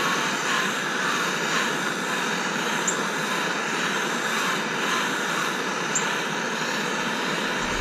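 Handheld gas torch burning with a steady hiss, its flame heating the corrosion-seized bell threads of an air horn to free them.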